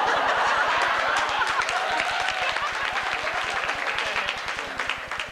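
Audience clapping, with many voices calling out at once, breaking out suddenly and dying down toward the end.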